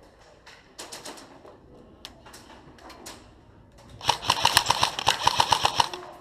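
Airsoft gun firing: a few scattered single shots, then about four seconds in a loud rapid string of shots, about ten a second, lasting about two seconds.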